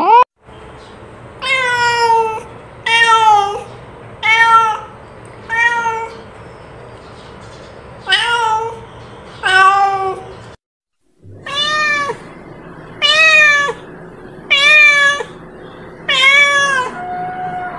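Domestic cat meowing over and over: about ten separate meows, one every second or two, each rising then falling in pitch. There is a short silent break about ten seconds in, after which the meows carry on.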